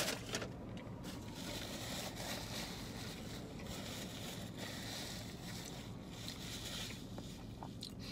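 Steady low rumble of a car cabin, with quiet chewing and a paper napkin rustling as hands are wiped, and a few small clicks.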